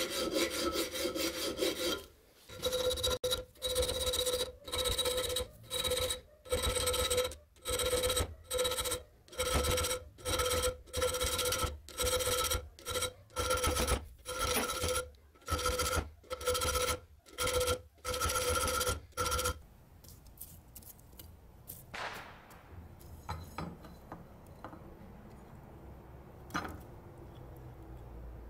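Hand file scraping back and forth across a steel survival knife blade in steady strokes, a bit more than one a second. Each stroke sets the blade ringing with a tone. The filing stops about two-thirds of the way in, leaving only faint clicks.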